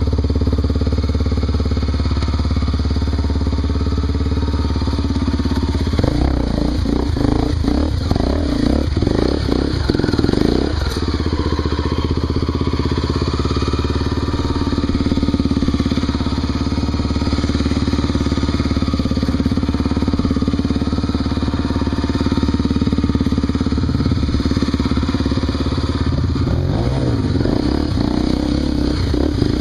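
Honda Tornado 250 single-cylinder four-stroke trail motorcycle engine running under way. The throttle rises and falls unevenly with some clatter about a quarter of the way in and again near the end.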